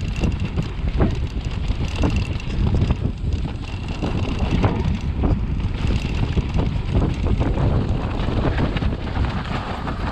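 Wind buffeting the action-camera microphone while an e-mountain bike rolls fast over a rough trail, with frequent knocks and rattles from the bike over bumps.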